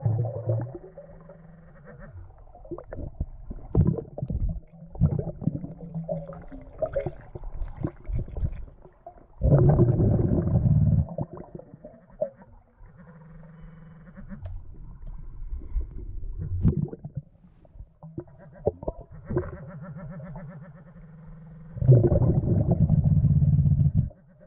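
A diver's breathing heard underwater: bursts of exhaled bubbles gurgling every few seconds, the longest about ten seconds in and again near the end, with a low muffled rumbling between them.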